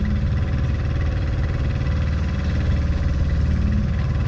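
Engine aboard a fishing boat running steadily, a low, even hum with a wash of sea noise over it.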